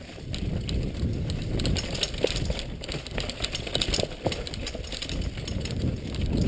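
Mountain bike running fast down a rocky trail: the bike and helmet camera clatter and rattle with each bump over a steady low rumble of wind on the camera.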